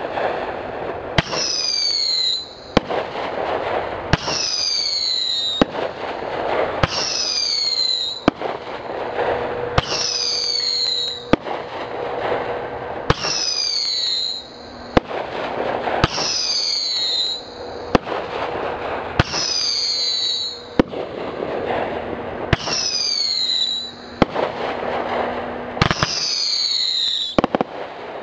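Dominator Scream Dream 16-shot 500-gram multi-shot firework cake firing shot after shot, about every two to three seconds. Each shot is a whistle falling in pitch, followed by the sharp bang of its break and a crackle.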